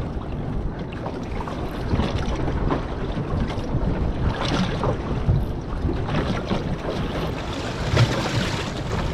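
Wind buffeting the microphone over the wash of waves around a small drifting boat. The wind swells louder about halfway through and again near the end.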